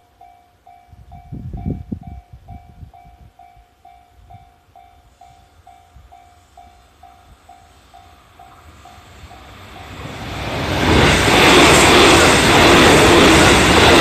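A level-crossing bell rings in an even clang, about two strokes a second. From about ten seconds in, a JR Central 313 series electric train approaches and passes close by, and its running noise rises to a loud steady rush that covers the bell.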